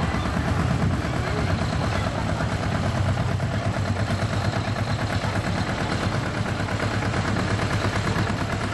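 An engine idling steadily with a fast, even beat.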